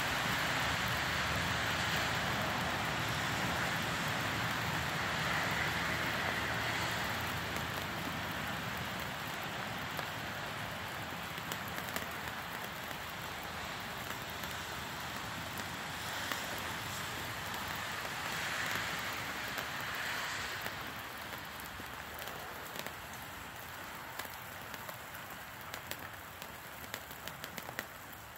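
Tube sparklers made with various metal powders burning with a steady hiss and scattered crackles. The hiss swells twice and then slowly fades, and sharp crackles stand out more near the end.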